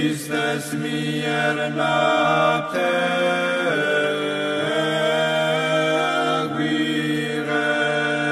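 Orthodox church chant sung without instruments, voices holding long notes that step to new pitches every second or so without a break.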